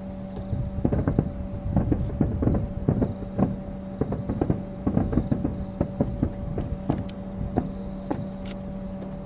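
Fireworks bursting, heard as a rapid, irregular string of thumps and pops that thins out toward the end, over a steady hum.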